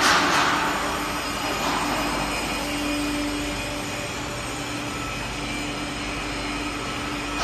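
Steel mesh conveyor belt of an annealing furnace running on test: a steady mechanical hum with a constant low tone over a hiss. A rhythmic clatter fades out in the first second.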